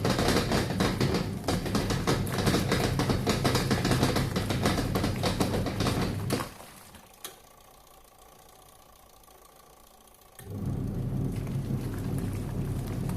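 Washing machine running with a low motor hum and a rapid rattling clatter, the crackling noise that is the machine's fault. It stops about halfway, then starts again with a smoother hum and less clatter.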